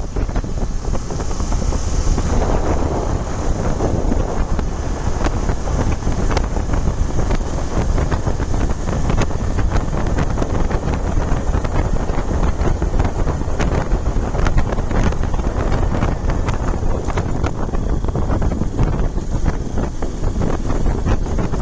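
Wind buffeting the microphone of a moving bike rider, a loud steady rumble with frequent small crackles.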